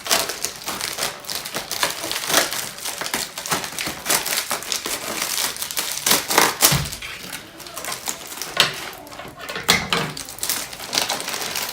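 Packaging being torn open and handled, a dense run of crinkling and clicking, with a low thump about two-thirds of the way through as the door handle inserts are unpacked.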